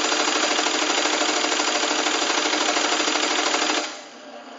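IBM 029 keypunch's punch mechanism clattering rapidly as it punches column after column while the card steps along, then stopping abruptly near the end. This is a fault: the machine punches a run of 5s whenever the Numeric key is held.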